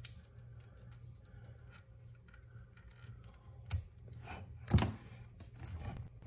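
Scattered small clicks and taps of hands working on a fuel-pump wiring connector, with two sharper clicks near the middle, over a low steady hum.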